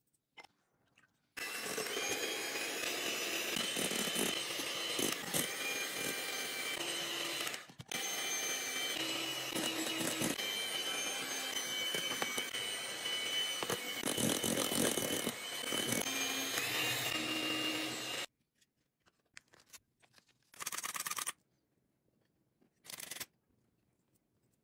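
Electric hand mixer running, its beaters whipping egg whites: a steady motor whine that starts about a second in, cuts out briefly, then runs on and stops well before the end. Two short, quieter bursts follow near the end.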